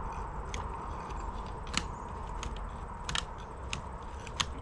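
Scattered light clicks and clinks, about half a dozen, as metal rebar stakes are worked loose and pulled out, over a low steady rumble.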